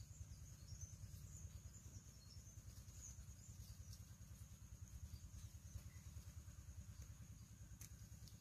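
Faint outdoor ambience: a steady, high-pitched insect drone, like crickets, over a low background rumble.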